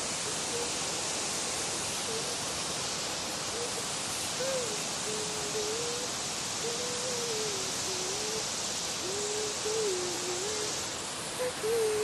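Water pouring over a wide concrete dam wall into the pool below, a steady rushing hiss. A single thin tone drifts up and down over it like a hummed tune.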